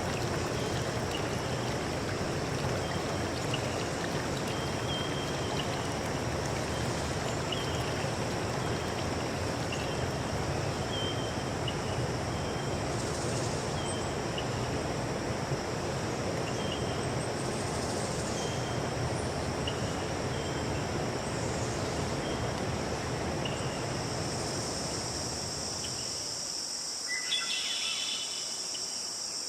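Running stream water under a steady, high insect chorus, with a faint short chirp repeating about once a second. Near the end the water sound cuts off abruptly, leaving the insects and a brief call.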